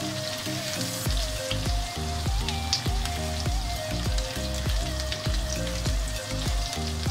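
Background music with a repeating melody, a bass beat coming in about a second in, over the sizzle of chopped green chillies frying in butter and oil in a pan.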